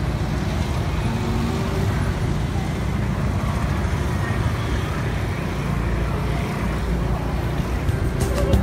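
Road traffic of cars and motorbikes: a steady wash of engine and tyre noise from close by, with no horns sounding. Background music comes in just before the end.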